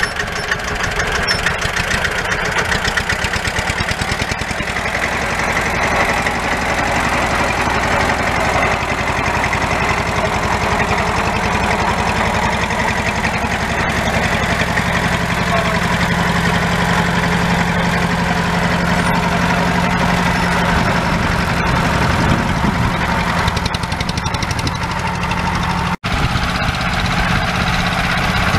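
1964 Deutz D15's single-cylinder air-cooled diesel engine running steadily under the load of pulling a plough, its firing strokes coming evenly. The engine pitch shifts briefly about two-thirds of the way through, and the sound breaks off for an instant near the end.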